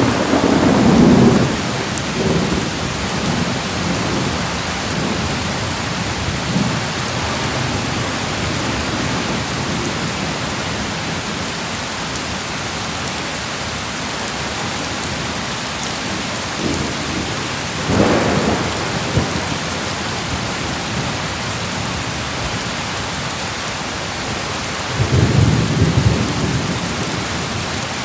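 Thunderstorm: steady heavy rain hissing throughout, with rolls of thunder rumbling at the start, once about two-thirds of the way in, and again near the end.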